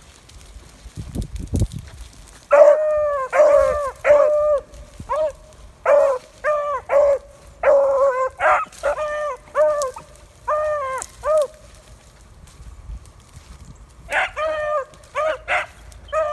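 Beagle pups baying on a rabbit's trail in runs of short yelping cries, each rising and falling in pitch. The cries break off for a couple of seconds past the middle and start up again near the end.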